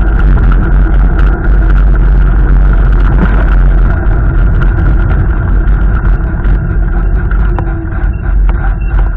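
Strong storm wind gusting and buffeting the microphone with a heavy rumble, along with rain noise, easing slightly in the last few seconds.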